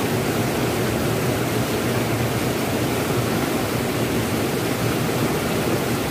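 Fast, muddy river water rushing and churning past rocks, a steady loud rush. The river is swollen and rising with floodwater.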